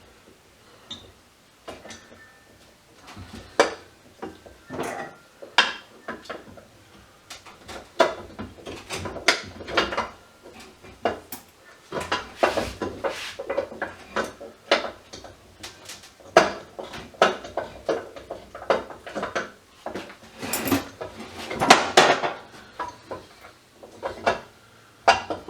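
Small metal parts and hand tools clinking and clattering on a workbench as scrap electrical parts are taken apart and sorted: many short knocks and rattles, busiest about halfway through and again near the end.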